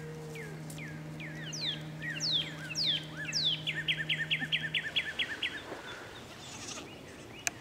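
Birds chirping in quick falling notes, with a fast run of about ten evenly repeated notes in the middle, over soft background music of held notes that fade out about five seconds in. A single sharp click near the end.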